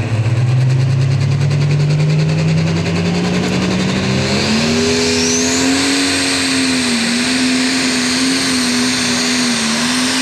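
Super Stock diesel pulling tractor, a red International, running under full load while pulling the sled. The engine note climbs steadily for about four seconds, then holds high and wavers a little. A high whine joins about halfway through.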